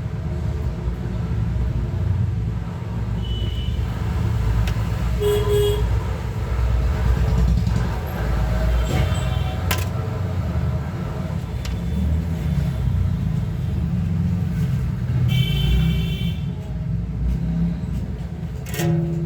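Steady low rumble of road traffic, with short horn toots a few times: about five seconds in, around nine seconds, and a longer one near sixteen seconds.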